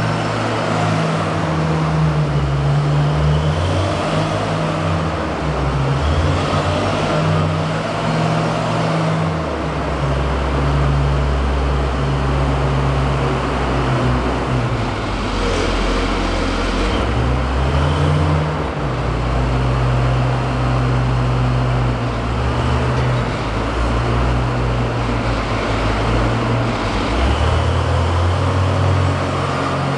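Hyundai HL740-7 wheel loader's diesel engine running, its pitch rising and falling as the machine drives and manoeuvres.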